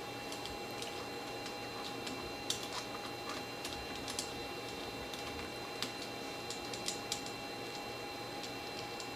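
Small, scattered metal clicks and ticks of a T-handle hex key being fitted to and turning a screw in a router mount, over a steady faint hum.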